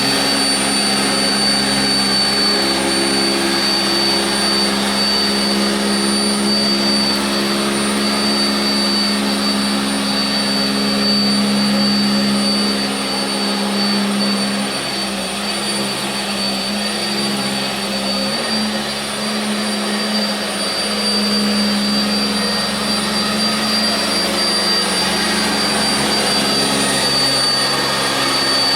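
Sanitaire SC679j commercial upright vacuum cleaner running steadily over carpet, its motor giving a high, steady whine over a low hum that wavers slightly as it is worked back and forth.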